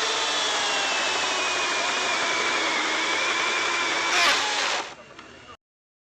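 Milwaukee cordless electric chainsaw cutting wood, its motor whining steadily with the pitch sagging slightly under load. A brief louder surge a little past four seconds, then the saw stops about five seconds in.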